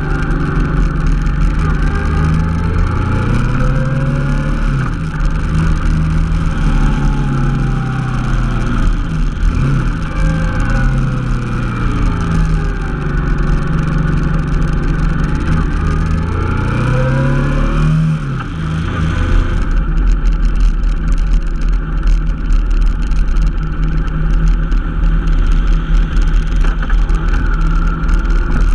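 Honda NT700V Deauville's V-twin engine under way, its note rising and falling with throttle and gear changes, mixed with low wind rumble. About two-thirds of the way through the engine note drops back and the wind rumble is heard most.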